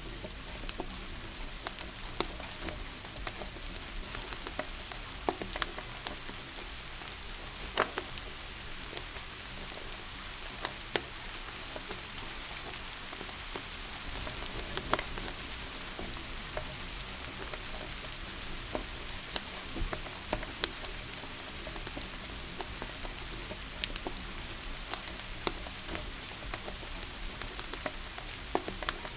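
Steady rain, with scattered sharp pops and crackles of a wood fire burning in a fireplace.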